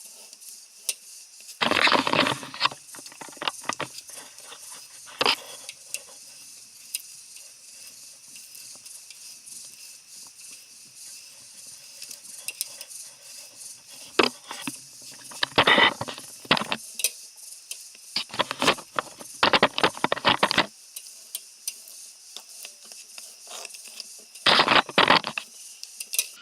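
Stevens axle tool's reamer being worked by hand through the worn threads of a Model T Ford front axle's spindle-bolt bore, cutting the old threads out: irregular bursts of metallic clicking and rattling with pauses between, the longest and loudest clusters in the second half.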